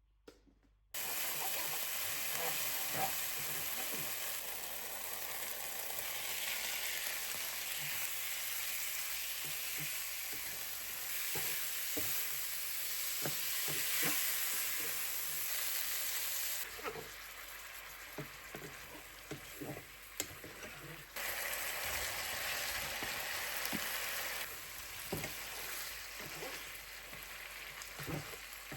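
Food sizzling in hot oil in a frying pan, a steady crackling hiss that starts about a second in, with short clicks of a utensil against the pan. The sizzle drops in level twice, about two-thirds and five-sixths of the way through.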